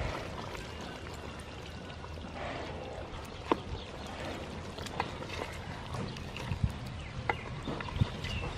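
Coconut milk poured into a pot of cooking chicken curry, then a wooden ladle stirring the curry and knocking against the metal pot several times in the second half.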